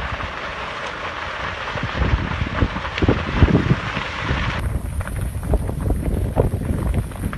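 Wind buffeting an outdoor microphone over a steady rushing noise. A little past halfway the rushing drops away abruptly, leaving the gusty low thumps.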